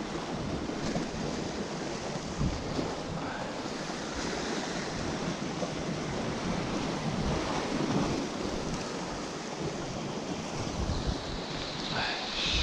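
Sea surf washing against shore rocks, a steady wash of water noise, with wind buffeting the microphone in gusts.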